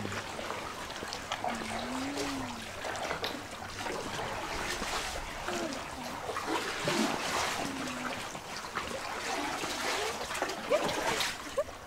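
Paddle strokes splashing and water trickling and lapping around a small paddled boat, an irregular wash of small splashes with no engine.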